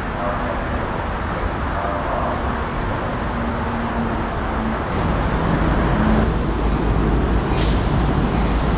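A Metrolink diesel locomotive approaching at a distance, a steady engine drone. About five seconds in, this gives way to the louder low rumble of a city bus going by, with a short air-brake hiss near the end.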